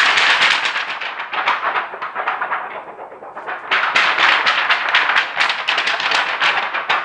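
A sheet of X-ray film shaken to make a thunder effect: a loud, crackling rattle that eases off briefly in the middle and swells again.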